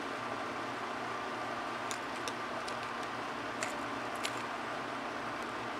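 Steady background hum and hiss of outdoor ambience, with a few faint light ticks about two to four seconds in.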